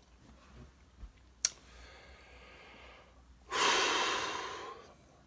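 A man with hiccups breathing: one sudden sharp click about a second and a half in, a quiet breath after it, then a loud, long breath out a little past halfway that fades away.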